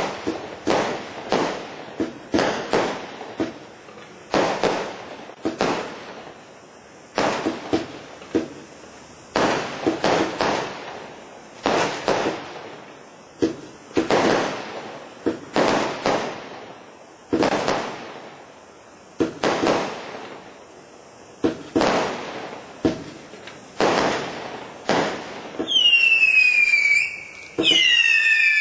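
Black Cat Colossus single-ignition firework cake firing: a sharp bang about every one to two seconds, each fading away after it. Near the end, several whistles falling in pitch join the bangs.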